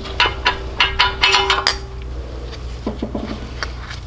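Metal engine internals of a Predator 301cc clinking and knocking against the cast block as they are worked loose during teardown, with a light metallic ring under the clinks for about the first two seconds. Softer clicks follow near the end.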